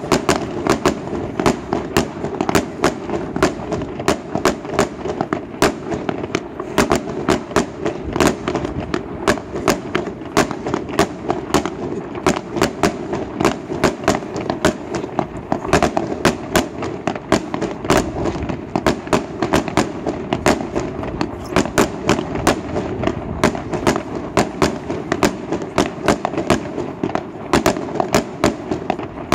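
Fireworks display with aerial shells bursting, a continuous run of sharp bangs and crackles two or three a second over a steady low background noise.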